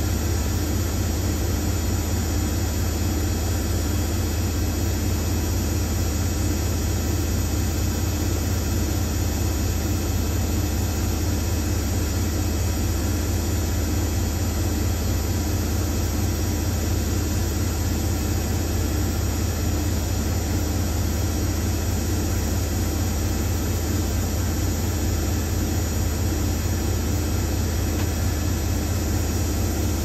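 Hoover Nextra top-loading washing machine on a spin-only cycle, its drum spinning and holding a steady speed with a constant low hum and whir.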